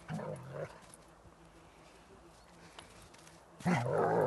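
German shepherds growling in rough play while wrestling: a short growl at the start, then a louder, longer growl of about a second near the end, with a quieter stretch between.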